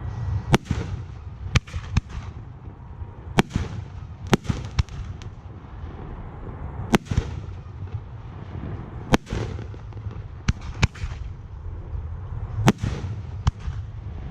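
Aerial fireworks display: about a dozen sharp shell bursts at irregular intervals, each with a short echoing tail, over a continuous low rumble.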